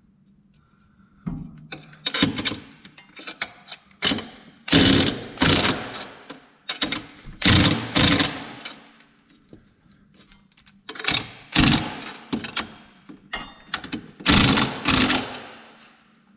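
Makita cordless impact wrench with a long socket hammering in several short bursts, tightening the bolts that hold a snow-plow mounting plate to the quad's frame.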